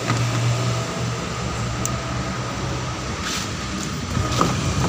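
Car engine idling steadily, a misfiring engine being checked for a dead ignition coil.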